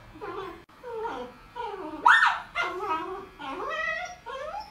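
Small white poodle-type dog whimpering and yipping in a run of short, wavering calls, with a sharper, louder yelp about two seconds in: the dog protesting at being held for clipping.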